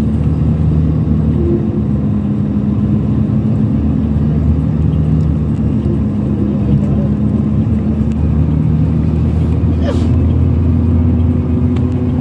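Steady drone of a coach's engine and road noise heard inside the passenger cabin while cruising on the motorway. The engine note shifts slightly higher about ten seconds in, with a brief faint click.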